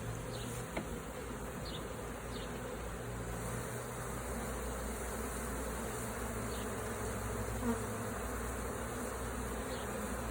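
Honeybees from an opened hive buzzing in large numbers: a steady, unbroken hum.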